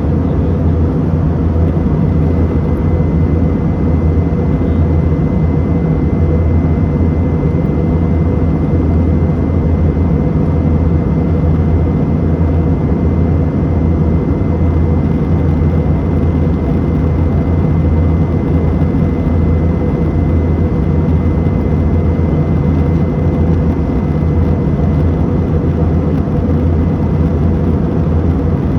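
Steady cabin drone of a Uni Air airliner in flight, heard from inside the cabin: a deep, even hum with a faint thin whine on top, unchanging throughout.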